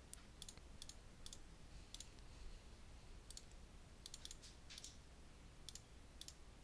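Faint computer mouse clicks, about a dozen at an irregular pace, as numbers are keyed in one digit at a time.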